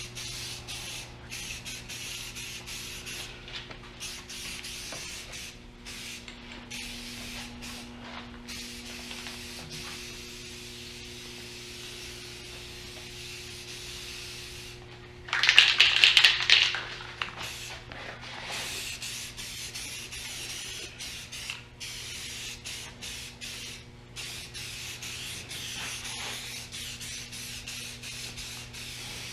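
Aerosol spray can hissing in repeated passes broken by brief pauses, with one louder burst lasting about two seconds roughly halfway through. A steady low hum runs underneath.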